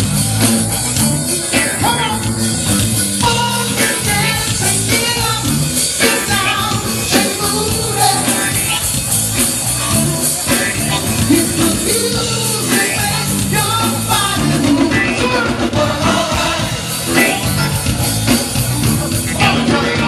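Funk band playing live, with a repeating bass line, drum kit and singing.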